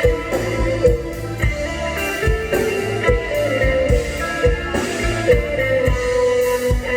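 Live band playing an instrumental passage: a guitar melody over chords, with drums keeping a steady beat.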